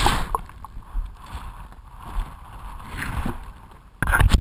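Shallow stream water sloshing and gurgling close to the microphone, with a low rumble, fading a little before a sudden loud clatter near the end.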